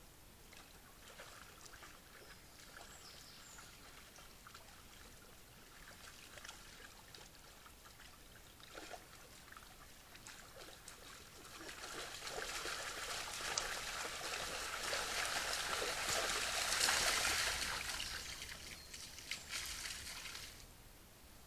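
Splashing, trickling water with scattered small clicks, growing much louder about halfway through and cutting off suddenly near the end.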